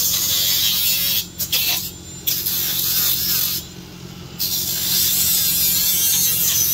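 Cordless rotary tool with a small abrasive disc grinding the rusty steel of a car's windshield pillar. The high-pitched grinding comes and goes as the disc is pressed on and eased off, dropping to a quieter spell a little past halfway before returning strongly.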